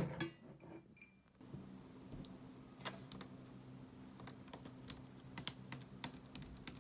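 A knock and handling noise at the start, then scattered, irregular clicks of laptop keys being pressed over a steady low hum.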